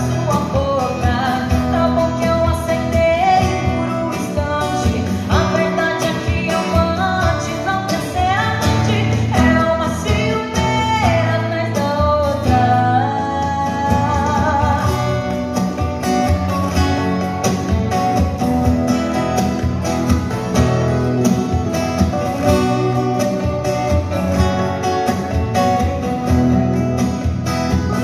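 A woman sings a sertanejo song live into a microphone through PA speakers, accompanied by a strummed steel-string acoustic guitar.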